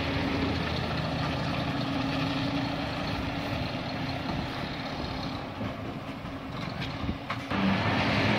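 Scania R580's 16-litre V8 diesel engine running steadily at low revs as the truck slowly hauls a loaded low-loader trailer. The sound jumps abruptly louder near the end.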